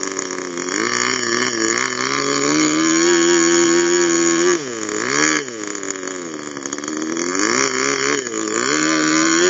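A model airplane's AP Hornet .15 two-stroke glow engine running with its propeller, its pitch rising and falling as the throttle is worked, with a sharp drop and quick pick-up about five seconds in.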